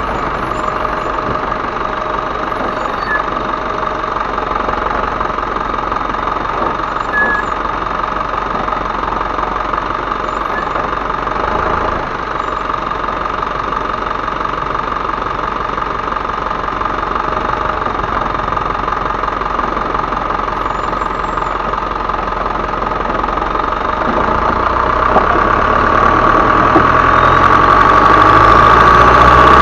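Isuzu Elf truck's turbodiesel engine running with a diesel knock and a steady, high turbo whistle over it. The engine and whistle grow louder over the last few seconds.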